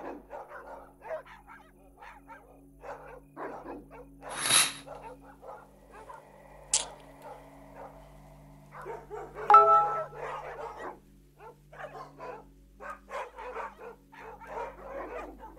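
Dogs barking repeatedly in short, irregular calls over a steady low hum, with a brief rushing noise about four and a half seconds in, a sharp click near seven seconds and a louder pitched cry about nine and a half seconds in.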